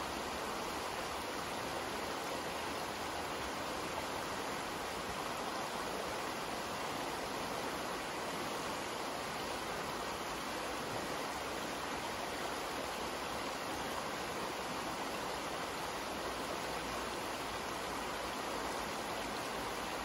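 Wide, shallow creek running steadily over rocks and riffles, a constant rushing with no breaks, the flow fed by recent rains.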